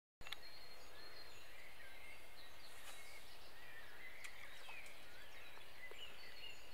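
Several small songbirds chirping and singing over a faint steady outdoor hiss, with a couple of brief faint clicks.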